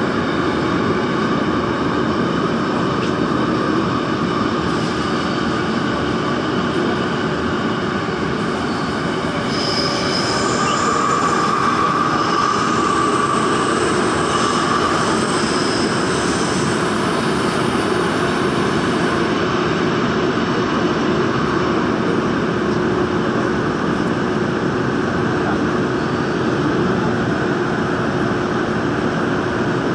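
Daejeon Metro Line 1 subway train running through a tunnel: a steady, loud rumble of wheels on rail. From about ten seconds in, a higher squealing tone rises over it and fades again by about sixteen seconds.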